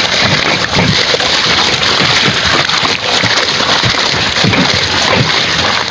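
Seawater splashing and sloshing as a hoop landing net full of sea urchins is dunked and swished at the side of a boat, working the loose spines off the urchins.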